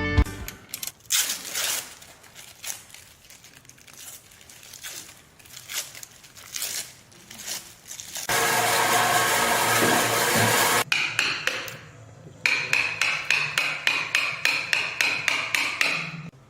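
Hand-tool and power-tool woodworking: scattered knocks and taps, then a power tool running for about two and a half seconds near the middle, then a quick run of rhythmic strokes.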